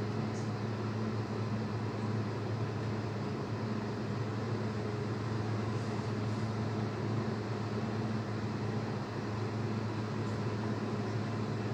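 A steady low mechanical hum, even throughout, with no speech or music.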